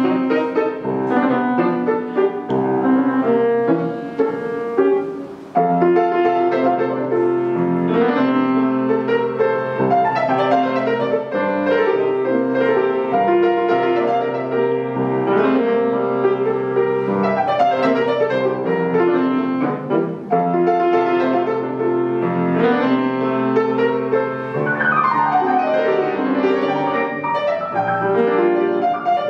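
Solo Estonia grand piano played in a fast, dense classical style, with quick runs sweeping down the keyboard. The loudness eases briefly about five seconds in before a strong entry.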